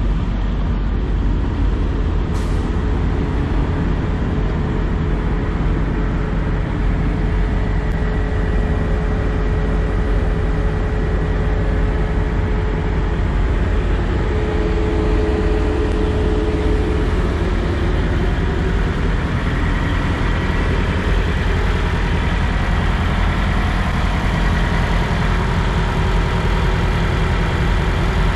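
Parked semi trucks' diesel engines idling: a steady low rumble with a faint steady whine above it.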